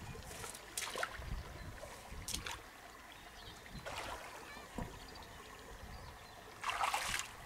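River water splashing: a few short splashes, the longest and loudest near the end, over the faint steady run of the stream.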